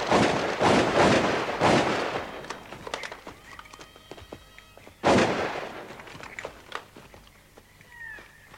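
A volley of shotgun blasts, three in the first two seconds and one more about five seconds in, each followed by a long echoing decay, with faint clicks between the shots.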